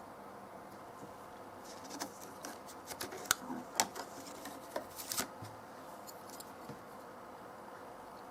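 Small sharp clicks and short scrapes of hands handling computer parts during an iMac RAM upgrade. A burst of them comes in the middle few seconds, over a faint steady hum.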